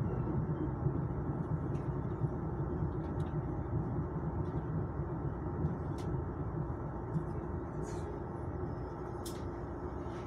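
Inside a Chu-Kuang Express passenger coach: the steady low rumble of the train running on the rails, easing slightly as it slows into a station. A few faint clicks and knocks sound over it.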